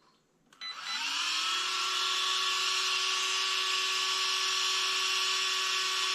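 Small 30x30 mm aluminium cooling fan on an RC car's ESC switching on about half a second in. It spins up with a quick rising whine, then runs at steady speed with a noisy, high whine.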